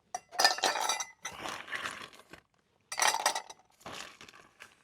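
Ice cubes clinking and rattling in a cup, in four short bursts.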